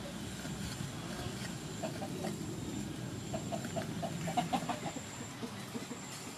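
A chicken clucking in a quick run of short notes, busiest and loudest in the second half. Underneath are soft strokes of a cleaver slicing raw beef on a wooden chopping board.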